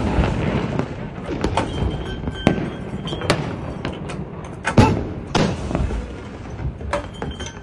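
Ceremonial cannon salute: about six shots at irregular intervals, each trailing off in echo.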